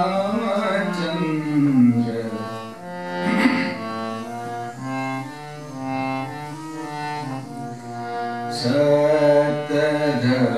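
Hand-pumped harmonium playing an interlude between sung lines of a devotional bhajan: a melody of held reed notes stepping up and down. A man's singing voice trails off at the start and comes back near the end, over the harmonium.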